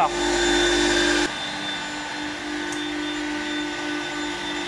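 Edge banding machine running idle just after its hot-air blower, feed and trimming cutter motors have been switched on: a steady motor hum with a high whine. A louder hiss on top falls away about a second in.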